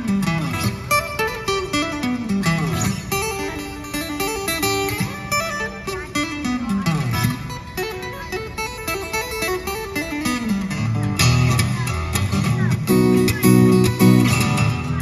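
Solo acoustic guitar playing boogie woogie blues, with bass runs that step down in pitch several times between picked and strummed chords. The strumming gets heavier and louder near the end.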